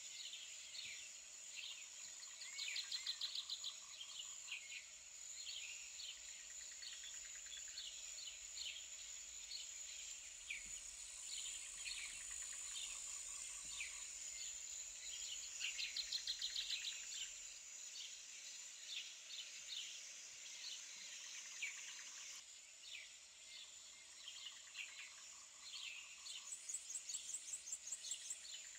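Small birds chirping steadily, with short falling calls and three loud, rapid trills, over a steady high-pitched hiss.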